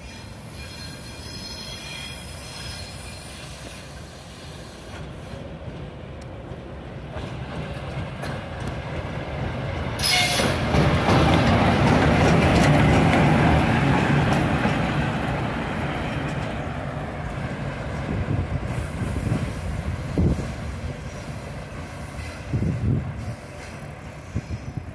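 ChME3 shunting diesel locomotive passing close by: its engine running and wheels rolling and squealing on the rails. It grows louder, peaks about halfway through, then fades as it moves away, with a few knocks from the wheels near the end.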